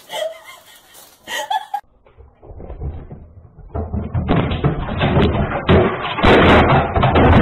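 A cat leaping onto a flat-screen TV and knocking it over: a loud run of thumps, knocks and clattering that builds from about halfway in. It sounds thin and cut off at the top, as picked up by a security camera's microphone.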